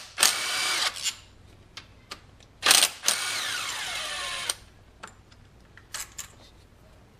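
Red cordless ratchet spinning out the 10 mm bolts of a timing chain tensioner on a Ford 5.4L 3V engine. It makes two runs: a short one near the start, and a longer one of about two seconds from roughly the third second, whose whine falls in pitch as it winds down.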